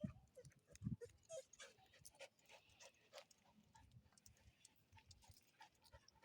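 An Aspin dog panting faintly, with brief high whimpers and scattered small clicks.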